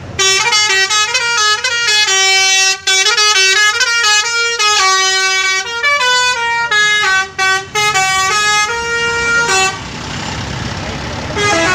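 Bus 'telolet' musical air horn playing a quick tune of short stepping notes for about nine and a half seconds, then one brief toot near the end.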